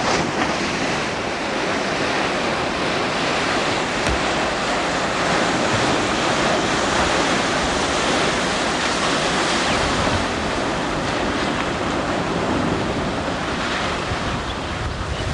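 Ocean surf breaking and washing continuously, with wind buffeting the microphone.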